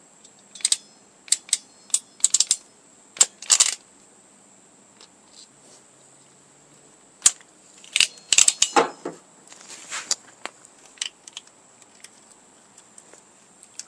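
Sharp clicks and light metallic clinks of a hand crimping tool and small wire terminals being handled, coming in irregular clusters: a run of clicks in the first few seconds and another around the middle.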